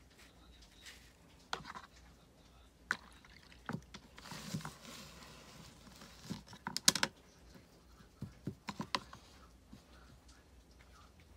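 Painting tools being handled on a tabletop: scattered light clicks and taps, loudest in a quick cluster about seven seconds in, with a soft rustle about four to six seconds in.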